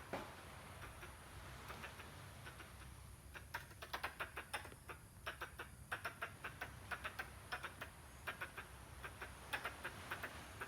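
Squirrel calling: a rapid run of short clicking chatter calls, several a second, growing louder about three seconds in.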